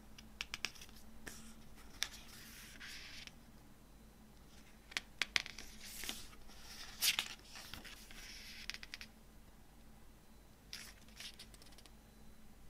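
Pages of a glossy CD booklet being turned and handled: several short paper rustles and slides, with light clicks of fingers and paper between them.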